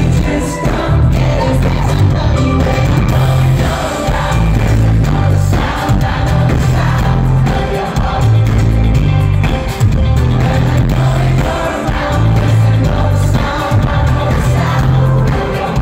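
A live pop-rock band playing loudly, with a lead singer, drums and guitars over a heavy, pulsing bass, heard from within the audience.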